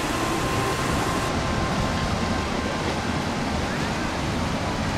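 Mountain stream water rushing steadily over rocks and a low stone weir.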